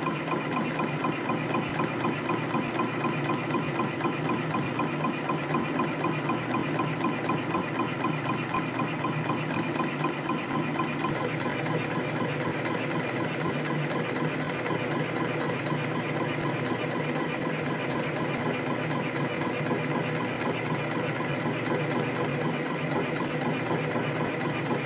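CNC compression spring coiling machine running, forming springs at about 240 a minute: a fast, even mechanical clatter with a steady ringing tone over it.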